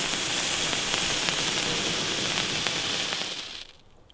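Comet Feuerdrachen handheld firework fountain burning with a steady hiss and scattered crackles as it sprays sparks. It dies away quickly about three and a half seconds in as the fountain burns out.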